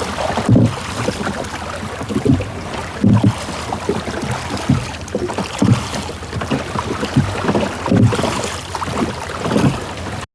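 Water lapping and sloshing around a small rowed boat: irregular low splashes roughly once a second over a steady rushing hiss.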